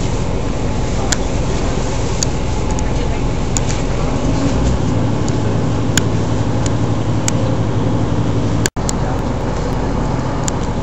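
Running noise heard inside a TransPennine Express diesel train: a steady rumble and rush, with scattered sharp clicks and a low engine drone that strengthens in the middle. The sound drops out for an instant near the end.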